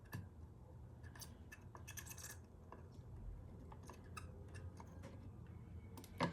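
Faint small clicks and taps of tools on an Xbox One controller's circuit board during desoldering of the joystick, with one sharper click near the end.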